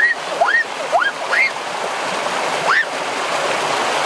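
Rocky stream rushing over a small cascade, a steady wash of water noise. Over it come several short rising calls, bunched in the first second and a half with one more near three seconds.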